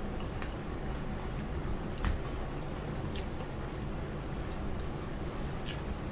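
Close-up eating sounds: chewing of fried chicken, with a few sharp mouth clicks scattered through, over a steady low hiss.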